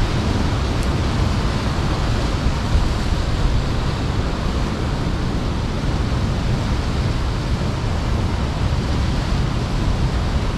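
Steady rush of sea surf and wind, with a heavy low rumble of wind on the microphone and no distinct events.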